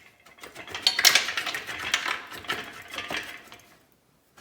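Metal parts clinking and clattering as one half of a split VW Type 1 1600 engine crankcase is pulled off, with the loose valve lifters dropping out. A quick run of sharp clinks, loudest about a second in, dying away near the end.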